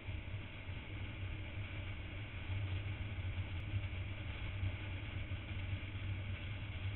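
Motorcycle engine running at a steady cruising speed under a constant rush of wind, a low even drone with hiss over it.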